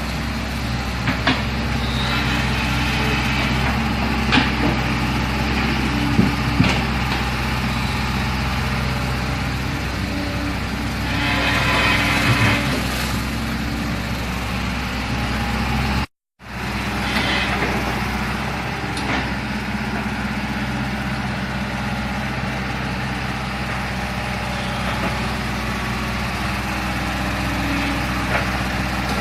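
Hitachi hydraulic excavator's diesel engine running steadily, with a few sharp knocks in the first several seconds and a louder hiss for a couple of seconds a little before the middle. The sound cuts out for a moment about halfway through.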